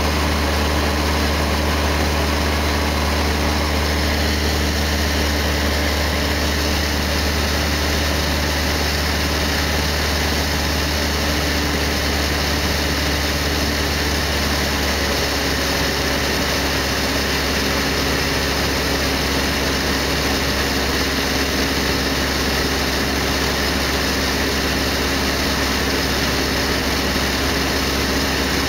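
Cessna 152's four-cylinder Lycoming O-235 engine and propeller droning steadily in cruise, heard from inside the cockpit. The engine note shifts slightly about halfway through.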